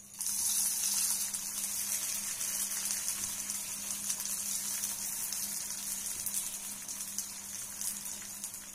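Hot oil sizzling in an appe pan as balls of sabudana vada mixture are set into its cavities one after another. The sizzle starts suddenly just after the start and eases off slightly toward the end.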